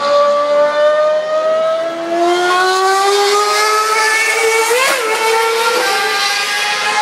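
Formula One car engines running past at high revs, their notes climbing steadily in pitch. A second engine at a lower pitch joins about two seconds in, and there is a quick pitch flick near the middle.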